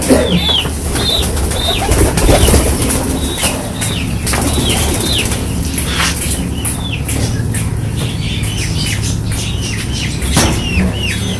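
A stiff hand brush scrubbing a wet concrete floor in irregular strokes, while small birds chirp over and over with short falling notes and a low hum runs steadily underneath.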